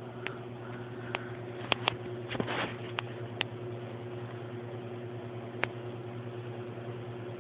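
A steady low hum, with about seven sharp clicks scattered through the first six seconds and a short rustle about two and a half seconds in.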